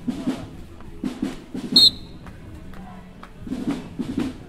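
Marching band drumline playing a cadence, drum strikes coming in short clusters, with one short, loud whistle blast about two seconds in.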